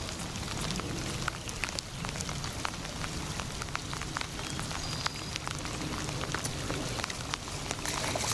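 Steady rain falling, with many individual drops ticking sharply close by over a low rumble.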